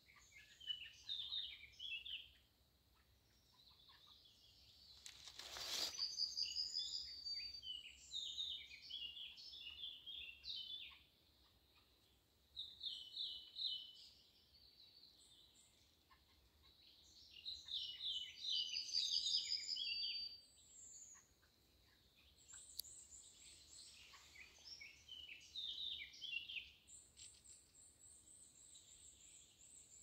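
Several small songbirds singing in a leafy wood, overlapping phrases of quick chirps and trills coming and going in bouts. There is a brief rush of noise about five seconds in, and a thin, high, steady trill near the end.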